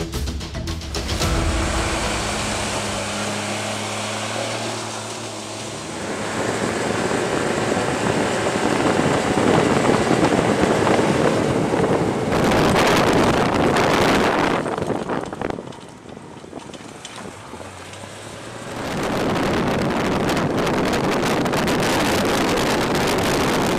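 Loud rushing engine noise from heavy vehicles or aircraft, with wind buffeting the microphone. The sound changes abruptly several times: briefly louder and brighter about halfway, then dropping lower for a few seconds before rising again.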